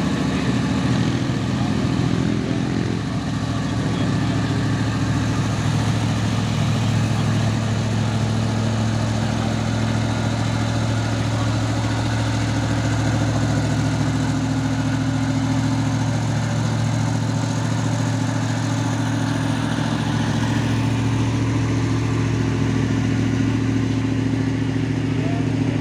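Heavy truck engines running steadily: a low, even engine drone with no break.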